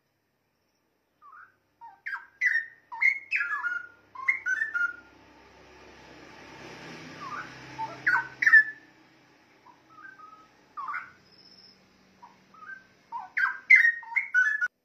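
Straw-headed bulbul singing: bursts of loud, liquid whistled phrases that glide up and down, with short pauses between them and a dense run of notes near the end. A soft hiss swells and fades in the middle.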